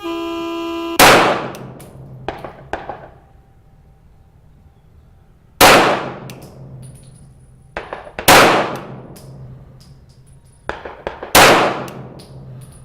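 An electronic start tone for about a second, then four shots from a CZ P-10F 9mm pistol fired a few seconds apart in a timed-fire string, with fainter sharp reports between them.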